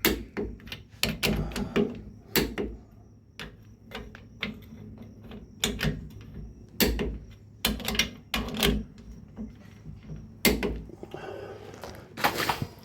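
Click-type torque wrench snapping off as the leaf-spring bolts come up to torque, amid a string of sharp, irregular clicks and knocks from the wrench and tool handling.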